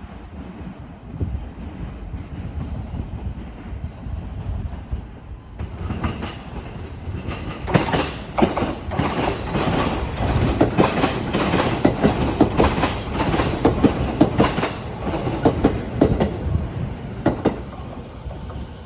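JR East E233-series electric train passing through the station without stopping. A low rumble as it approaches gets suddenly louder about six seconds in, then a long run of rapid wheel clicks over the rail joints that eases near the end.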